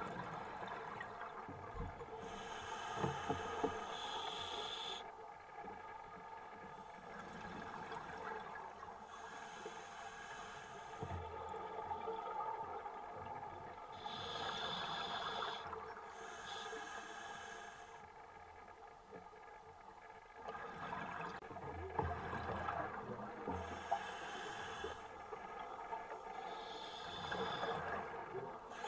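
A scuba diver breathing through a regulator, heard underwater: a hiss on each breath and bubbling in between, in a slow rhythm of one breath cycle every five or six seconds, with a few dull knocks.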